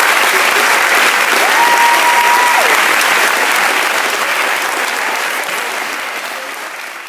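Audience applauding after a cappella singing, with a single held whistle rising and falling about a second and a half in; the applause dies away near the end.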